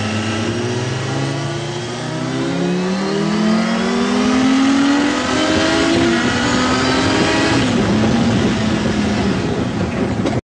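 Sport motorcycle engine accelerating hard, its revs climbing steadily with brief drops about six and eight seconds in as it shifts up a gear. The sound cuts off suddenly near the end.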